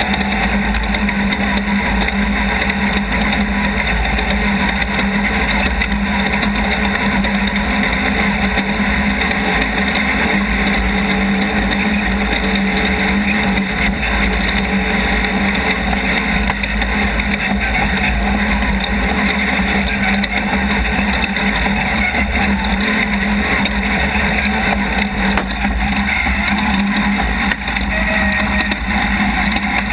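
Off-road race vehicle's engine running hard at a fairly steady pitch over continuous low rumble and noise.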